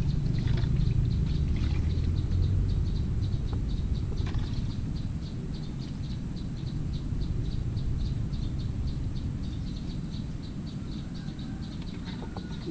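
Outdoor ambience: a steady low rumble with a rhythmic high chirping, about five chirps a second, and a few light rustles and clicks as a plastic bag is handled over a bucket.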